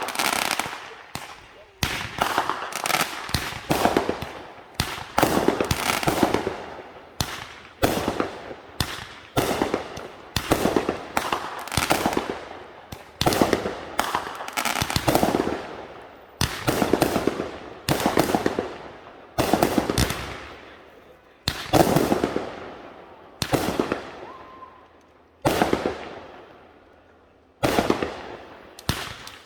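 Fireworks going off in quick succession, a loud bang about every second, each followed by a fading crackle.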